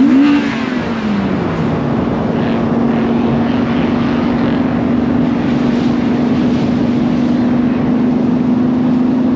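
Car engine running at a steady pitch over road and wind noise, after a falling pitch in the first second or two, as from a gear change.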